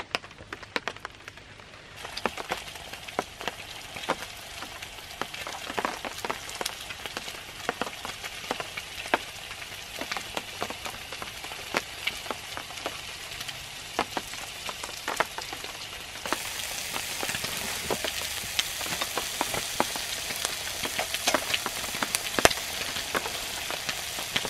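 Potatoes and sausage frying in a pan over a spirit burner: a steady sizzle full of crackles and pops. It steps louder about two seconds in and again a little past the middle.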